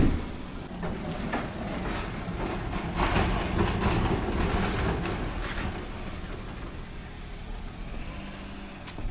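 Small hatchback car driving slowly away over a dirt and gravel lane, engine running and tyres crunching on the gravel, loudest a few seconds in. A sharp knock right at the start.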